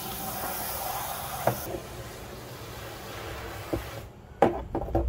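Water spraying from a hose into a cut-down 55-gallon plastic barrel, rinsing out plastic shavings; the steady hiss stops about a second and a half in. Near the end come a few sharp knocks as the plastic barrel is handled, the loudest about four and a half seconds in.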